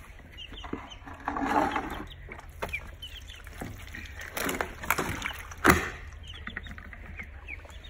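Ducklings and chicks peeping in a brooder, many short high chirps, with a few knocks and rustles of handling; a sharp knock a little before six seconds in is the loudest sound.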